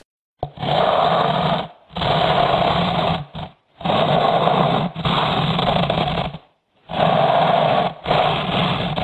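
A person snoring: three breaths, each a drawn-in snore and a breathed-out snore of about a second apiece, with short pauses between.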